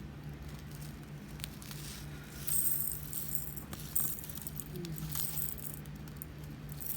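Tiny resin diamond painting drills rattling as they are poured out of a cut-open bag into a small storage container, loudest about two and a half seconds in and again at about four seconds.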